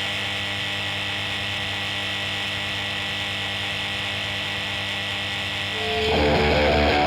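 Steady electric hum holding several constant tones. About six seconds in, distorted electric guitar music comes in over it and it gets louder.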